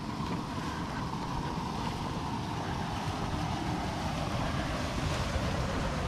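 Wind buffeting the camera microphone: a steady rumble under a rushing hiss, growing slightly louder toward the end.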